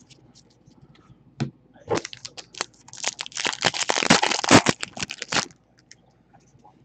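A foil 2014-15 Donruss basketball card pack being torn open and crinkled by hand: a dense, crackling rustle from about two seconds in until about five and a half seconds, after a lone sharp click.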